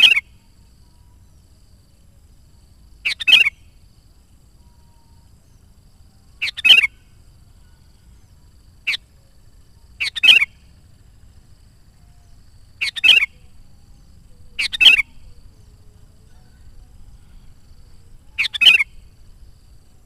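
Sooty-headed bulbul giving short, loud call phrases, one every two to four seconds, about eight in all.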